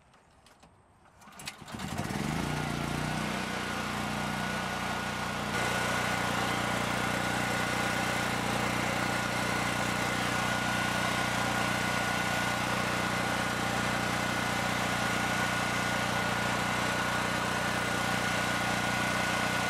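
Portable generator's 420cc single-cylinder gasoline engine starting about two seconds in, its pitch briefly rising and falling, then running steadily.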